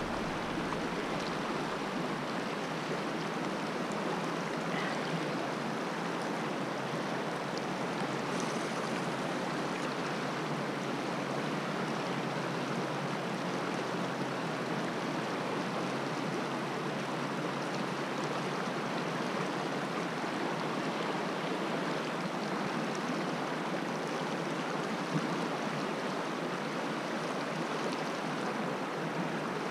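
Shallow mountain river running swiftly over rocks and riffles: a steady, even rush of moving water.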